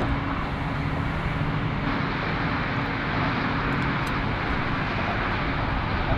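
Continuous noise of road traffic crossing a highway bridge: tyres and engines blending into one steady drone.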